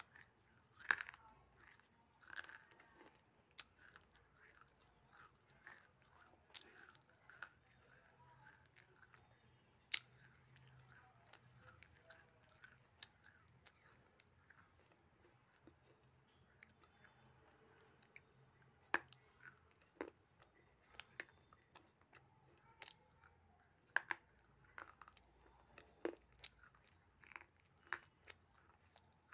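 A person biting and chewing pieces of baked edible clay (Punjab mitti), with sharp, irregular crunches and quieter chewing between them.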